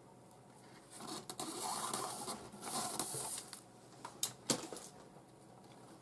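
Nylon 550 paracord rubbing and sliding as it is drawn through a loop and handled: a soft swishing rustle for a couple of seconds starting about a second in, then two short ticks a little after the middle.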